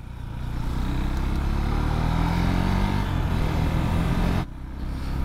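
KTM Duke 390's single-cylinder engine under way, its pitch climbing and then holding steady, with wind rushing over the helmet camera; the wind noise falls away near the end.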